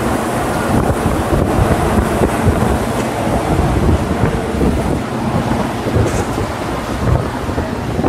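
Wind buffeting the microphone hard over a steady low rumble.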